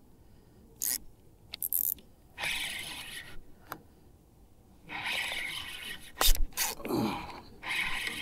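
Close breaths and handling noise from a spinning rod and reel: a few short hissing breaths, with sharp clicks and knocks from the reel and rod about six seconds in.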